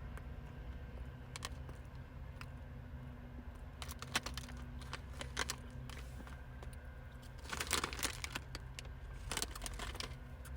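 Crinkling and crunching from a crunchy-coated ice cream bar being handled and eaten: scattered sharp crackles, then two short denser bursts near the end, over a low steady hum.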